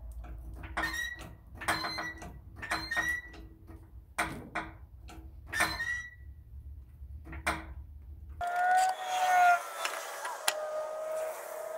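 A series of sharp metallic clinks, about eight over some seven seconds, each ringing briefly, over a low steady hum. They come from the wheel-refitting work on the truck. About eight seconds in, the hum stops abruptly and a wavering squeak with rubbing noise follows.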